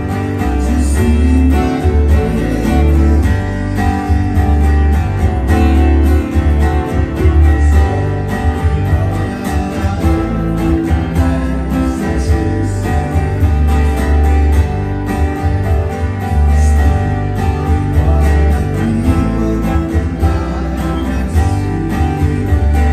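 Steel-string acoustic guitar strummed in steady chords that change every few seconds.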